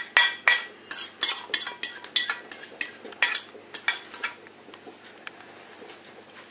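A metal fork clinking and scraping against a porcelain plate and bowl as shredded lettuce is pushed off the plate. It is a quick run of sharp clinks, several a second, that stops about four seconds in.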